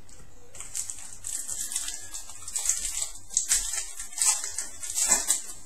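Trading cards and their packaging being handled, giving an irregular crinkly rustling in uneven bursts. The bursts start about half a second in and are loudest near the end.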